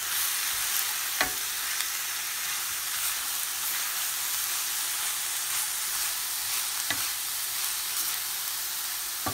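Tuna and chopped vegetables sizzling in a stainless steel frying pan while being stirred with a wooden spoon, with two sharp knocks, one about a second in and another near seven seconds.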